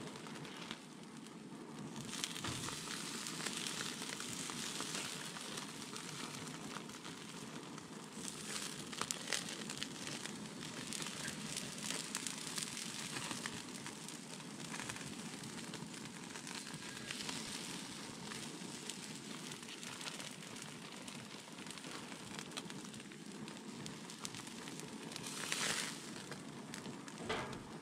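Marinated rabbit pieces sizzling and crackling on a hot grill as they are laid on one by one, with crinkling from the plastic bag they are taken out of.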